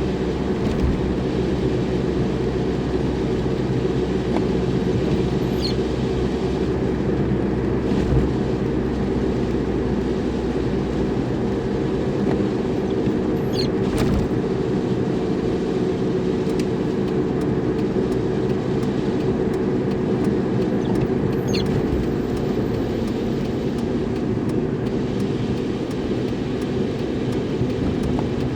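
Car driving steadily, its engine and road noise a continuous hum, with a short high squeak about every eight seconds.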